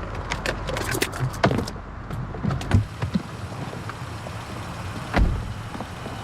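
Quick clicks and rattles of a car door being opened, then the car door shutting with a single low thud about five seconds in, over a steady low hum.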